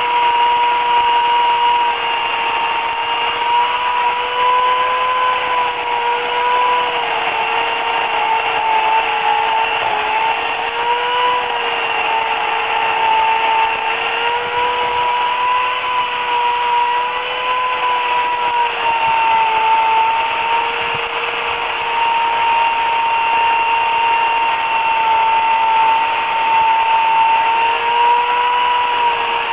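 Remington Limb N Trim RM1415A electric chainsaw with an 8-amp motor running continuously, a steady high whine whose pitch dips slightly from time to time.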